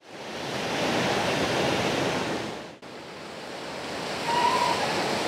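Ocean surf breaking and washing over shore rocks, heard as a steady rush that is cut off sharply about three seconds in and then resumes. A short, faint call rises above it a little after four seconds.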